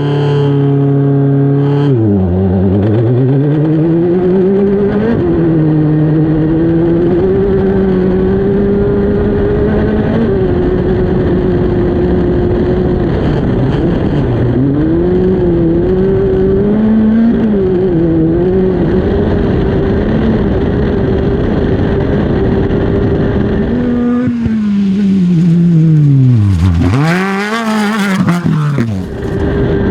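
Off-road race car engine running hard, its revs rising and falling repeatedly as it accelerates and lifts. Near the end the revs drop deeply and surge back twice, with a burst of hiss.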